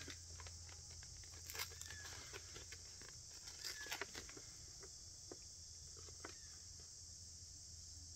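Faint scattered clicks and light paper rustles as a broadhead is handled and drawn across paper to test how sharp its blades are, a few slightly louder clicks about one and a half and four seconds in, over a steady high hiss.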